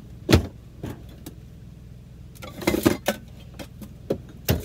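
Handling noise in a kitchen: a knock, then a short clatter of metal utensils about two and a half seconds in, and another knock near the end, over a steady low hum.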